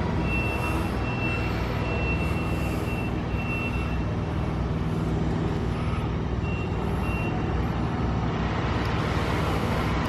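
Heavy construction machinery engines running steadily, with a backup alarm beeping in an even series for the first four seconds and again briefly about seven seconds in.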